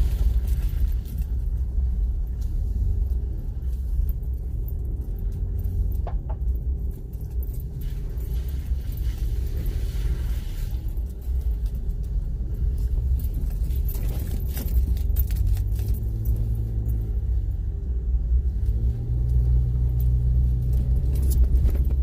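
Car driving along a rough dirt road, heard from inside the cabin: a steady low rumble of engine and tyres with a few light rattles. The engine note climbs about two-thirds of the way through and again near the end as the car picks up speed.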